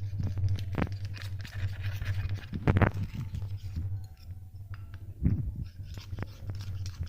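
Scattered clicks and scrapes of objects being handled, with two louder knocks about three and five seconds in, over a steady low hum.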